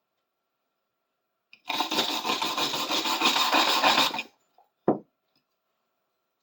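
Sandpaper rubbed hard by hand over a rusty metal piece: about two and a half seconds of fast, scratchy rubbing starting near two seconds in, followed by a single short knock.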